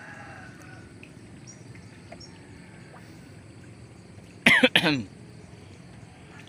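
A person coughing twice in quick succession, loud and brief, about four and a half seconds in, over a steady low background rumble.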